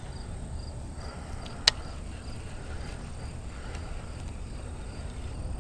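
Crickets chirping faintly and evenly, two or three chirps a second, over a low steady rumble, with one sharp click about a second and a half in.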